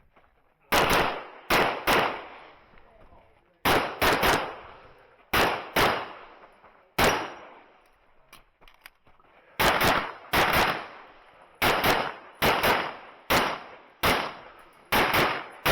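Handgun shots fired by a competitor shooting an IPSC stage, mostly in quick pairs and threes with short pauses between strings as the shooter moves between targets. Each shot is a sharp crack with a short echo.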